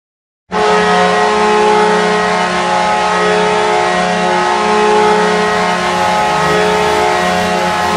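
Minnesota Wild arena goal horn blowing one long, steady, low blast that starts about half a second in.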